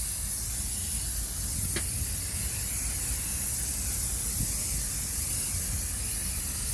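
Aerosol can of paint remover spraying in one long, steady hiss.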